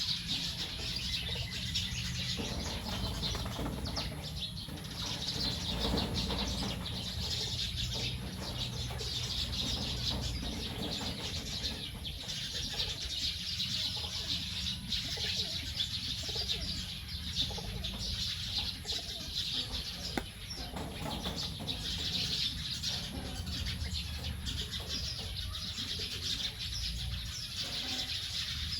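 A large flock of birds chirping and chattering continuously at a roost as they settle for the night, many overlapping calls at once, with occasional wing flaps.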